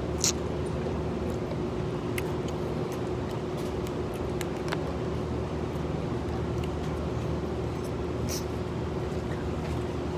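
Steady machine hum, like an engine or motor running, holding one constant tone. A few brief sharp clicks sound over it, one about a quarter second in and one near the end.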